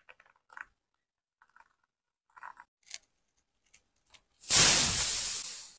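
Snap-off utility knife blade slicing along a shoe's white foam sole layer: one loud scraping cut of just over a second that tails off. Before it come a few faint small ticks and clicks of handling.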